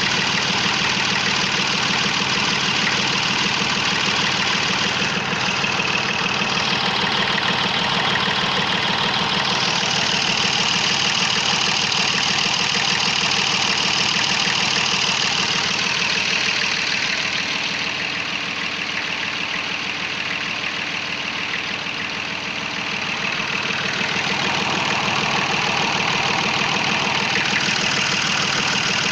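Perkins three-cylinder diesel engine idling steadily with the usual diesel knock, running evenly; it goes slightly quieter for a few seconds past the middle.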